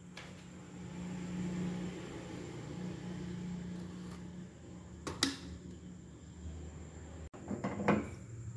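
A steady low hum, with one sharp click about five seconds in and a brief clatter near the end as a non-stick frying pan is moved onto a gas stove.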